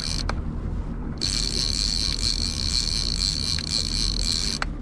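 Twin Mercury outboard motors running steadily at trolling speed: a constant low rumble with a steady high whine over it.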